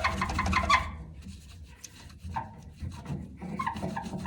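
Paper towel rubbing back and forth on the sooty glass door of a wood stove insert in quick strokes, scrubbing off stubborn soot residue. The strokes ease off after about a second and pick up again more lightly toward the end.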